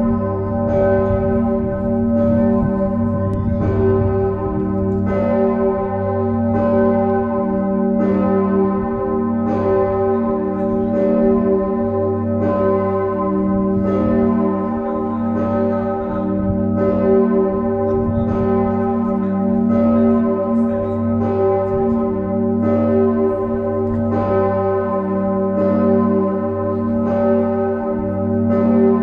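The large Osanna bell of the Nikolaikirche, bell 1, tuned to g°, swinging and ringing on its own. Its clapper strikes at a slow, even rhythm, and each stroke renews a long ringing tone over a deep hum.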